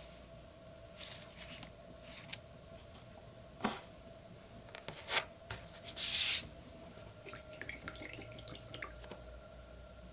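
Close handling of a watercolour paper test strip and paintbrush on a tabletop: a few light clicks and taps, then a short, loud papery rub about six seconds in as the strip is set down.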